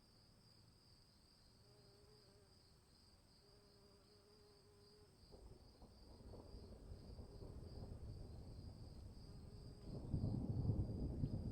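Crickets chirping in a steady, pulsing trill. About halfway through, a low rumble builds and becomes much louder near the end.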